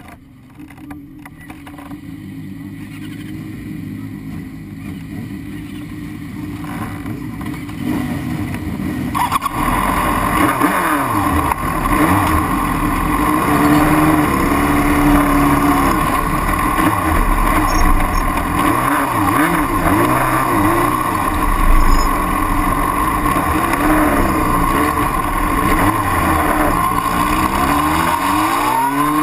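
Racing motorcycle engines idling and being blipped in a pit lane, heard close up from on board one bike. The sound builds over the first ten seconds and jumps in level about nine seconds in. Near the end the revs rise as the bike pulls away.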